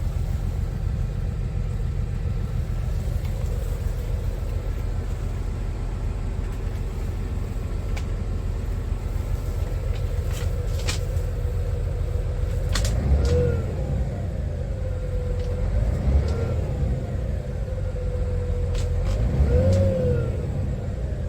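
Scania R500 truck's 13-litre inline-six diesel idling with a steady low rumble, revved briefly three times past the middle, each rev rising and falling back to idle.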